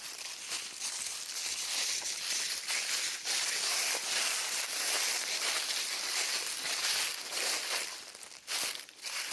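Footsteps crunching and shuffling through dry fallen leaves, an irregular crackling with a short lull near the end.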